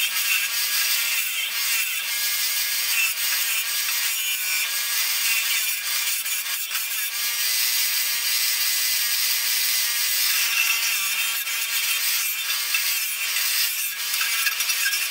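Craftsman bench grinder's spinning wire wheel brushing the welds on a steel bracket clean: a steady, harsh scratching hiss with a faint hum underneath, wavering a little as the piece is pressed and moved against the wheel.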